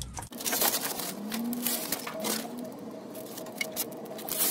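Brown paper backing being peeled by hand off a self-adhesive sound-deadening sheet, with irregular crackling and tearing as the paper pulls away from the sticky sheet.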